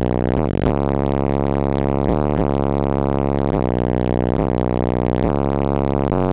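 Bass-heavy music played loud through a car audio system's six 18-inch Soundstream XXX subwoofers with PSI recones: deep sustained bass notes that change pitch every second or so.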